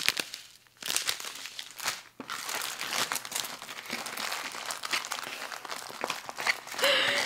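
Plastic film packaging crinkling and rustling as it is handled, in uneven bursts with short pauses: the cellophane wrap around packs of round diamond-painting drills.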